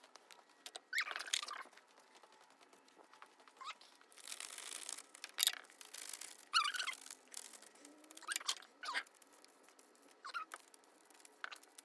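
A cloth rubbing over a plastic-covered poster, followed by a whiteboard marker writing on the glossy surface in a string of short scratching strokes.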